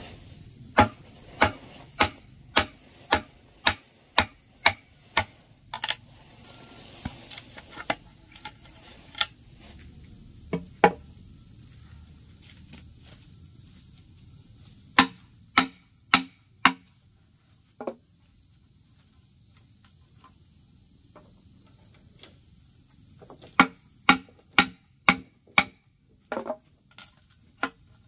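Repeated sharp strikes from hand-tool work, about two a second in uneven runs with pauses between, over the steady high trilling of insects.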